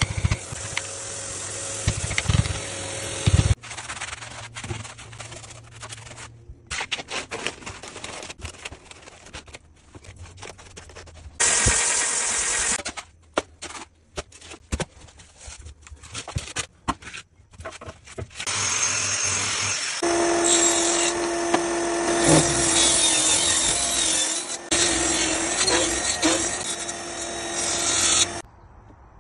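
A run of floor-repair work noises: a steel chisel knocking and scraping at old parquet and adhesive, with scattered short scrapes and taps, then from about two-thirds of the way in a table saw running with a steady motor tone as an oak board is cut, stopping just before the end.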